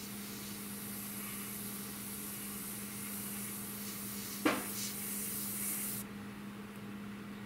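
Airbrush spraying paint: a steady airy hiss that stops about six seconds in. A single sharp tap about four and a half seconds in is the loudest sound.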